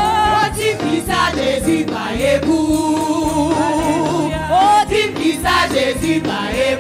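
Worship music: group voices singing a gospel song with held, gliding notes, over instrumental backing with a steady beat.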